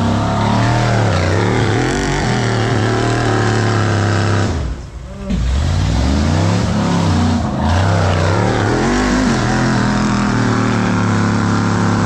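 High-horsepower off-road hill-climb vehicle's engine being revved up and down repeatedly while waiting at the start, dropping off briefly about five seconds in before revving again.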